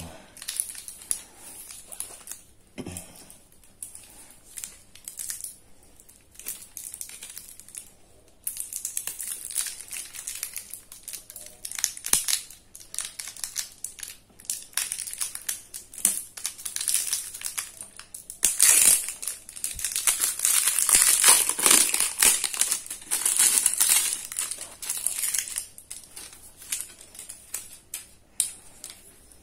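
Clear plastic protective wrap crinkling and crackling as it is cut with scissors and peeled off a fishing rod's handle. The crinkling is loudest about two-thirds of the way through.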